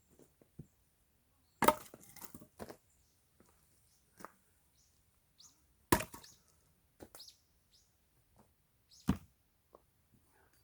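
An axe splitting firewood logs: three sharp chopping blows about four seconds apart, each followed by a short clatter of wood.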